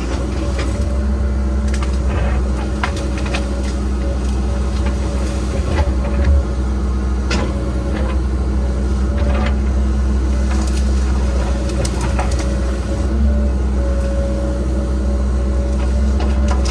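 Cat 306 excavator's diesel engine running steadily as the machine works, with scattered clicks and knocks over the engine hum.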